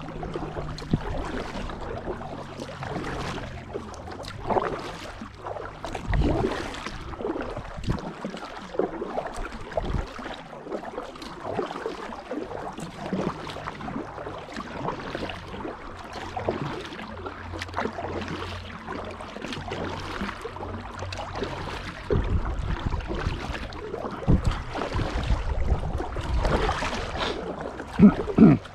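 Kayak paddling: the paddle blades dip and splash into canal water in an uneven rhythm, about one stroke every second or two. Two louder thumps come near the end.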